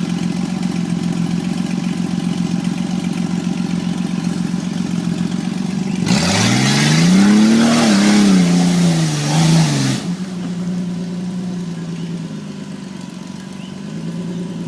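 Jeep Cherokee 4x4's engine idling, revved once about six seconds in: the pitch climbs, falls back over about four seconds and drops suddenly to idle.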